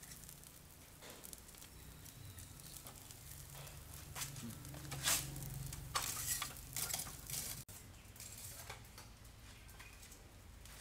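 Metal tongs clinking and scraping against a charcoal grill grate while whole snakehead fish are turned, with a cluster of short clatters partway through, over a faint sizzle.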